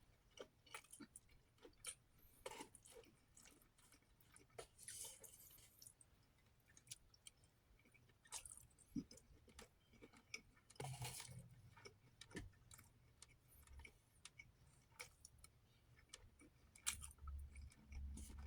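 Faint chewing of food close to the microphone, with scattered small mouth clicks and soft smacks at irregular moments.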